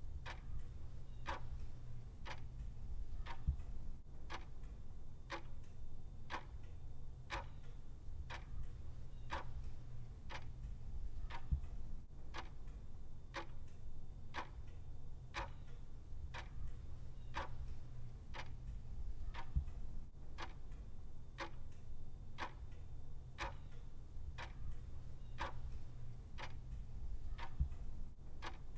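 Clock ticking steadily, about one tick a second, over a steady low hum.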